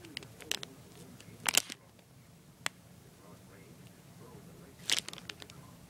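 Cellophane packaging of paper flowers crackling and clicking as it is handled: a few short, separate crinkles, the loudest about a second and a half in.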